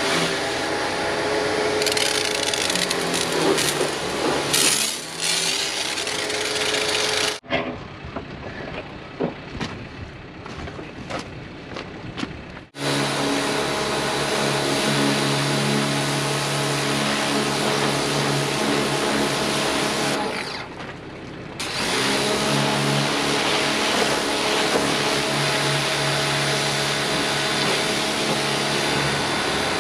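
Pressure washer running, its motor droning steadily under the hiss of the high-pressure spray blasting dirt off a vehicle. The sound cuts abruptly to a quieter, choppier stretch about a third of the way in, then the steady drone and spray return, with a brief dip about two-thirds of the way through.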